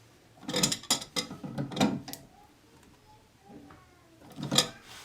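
Toilet water supply line's coupling nut being threaded and tightened onto the fill valve's shank: three short bouts of clicking and scraping, the last near the end.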